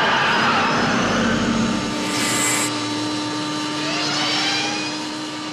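Film sound of a DeLorean sports car launching hard, its rear wheels spinning in tyre smoke, then its engine running loud as the car speeds away, with the pitch rising about four seconds in.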